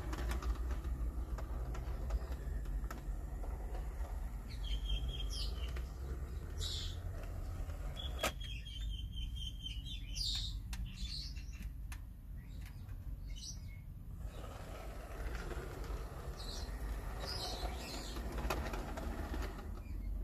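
Hornby OO gauge Class 59 model locomotive running along its track with a steady low motor-and-wheel hum. Short high chirps and brief trills come every few seconds over it.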